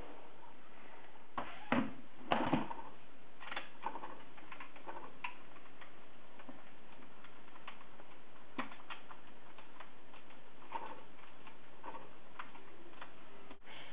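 Clicks and knocks of hard plastic parts as hands work the housing and display mount of a Panasonic JS-950WS point-of-sale terminal. The loudest are a few knocks about two seconds in, followed by scattered light clicks over a faint steady hiss.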